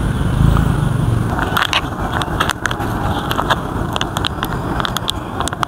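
Crinkling and crackling of a foil snack pouch being handled, sharp crackles coming thick from about a second and a half in, over a steady low rumble.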